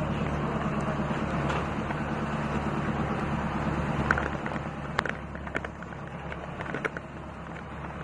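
Motorised outrigger boat's engine running steadily under a rush of wind and water noise. The noise eases a little about halfway, and a few sharp knocks come in the second half.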